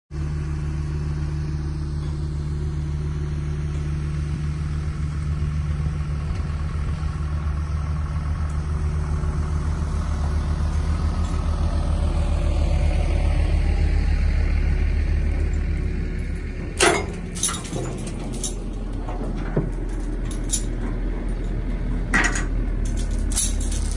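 An equipment engine running steadily, then a run of sharp knocks over the last several seconds.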